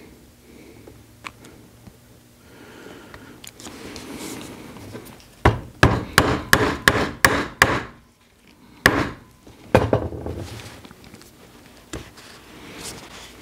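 A mallet striking a hand-held leather hole punch through a belt end on a punching board: a quick run of about seven sharp blows, then two more single blows.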